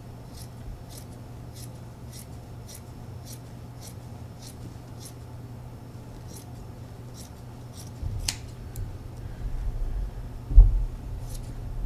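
Scissors snipping through four layers of thick extra-loft batting: a steady run of crisp cuts, about two a second, thinning out after the first half. From about eight seconds in there is low rumbling handling noise, with one heavy thump near the end.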